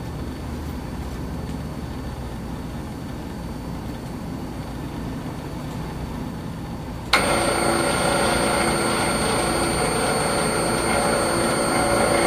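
Automatic bolt tension tester starting up about seven seconds in and running steadily with a high machine whine as it snug-tightens a tension control bolt's nut. Before that, only a low steady machine hum.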